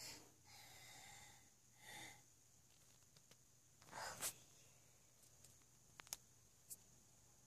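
Faint breathing of a dozing toddler: a few soft breaths, the loudest about four seconds in with his mouth wide open, followed by a few faint clicks.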